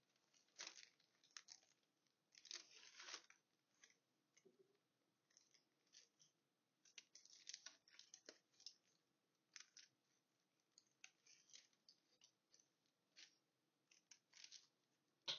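Small scissors snipping cotton fabric in short irregular cuts, with faint rustling as the fabric and paper pattern sheet are handled between snips.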